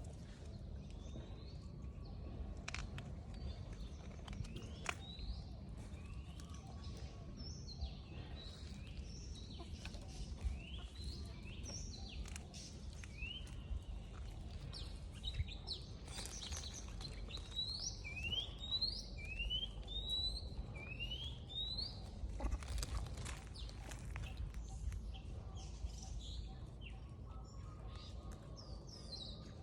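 Birds chirping in the background, with many short rising chirps, densest through the middle. Beneath them runs a steady low rumble of outdoor noise, with a few scattered clicks.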